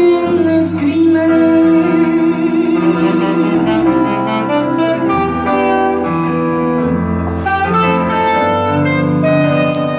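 Live band music in an instrumental passage without singing: a lead instrument holds long melodic notes over a bass line.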